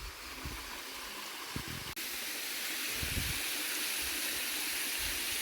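Rushing water of a waterfall, heard as a steady hiss that becomes louder after an abrupt break about two seconds in.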